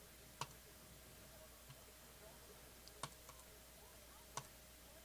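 Three sharp clicks of a computer mouse button over near-silent room tone: one about half a second in, one about three seconds in and one near the end.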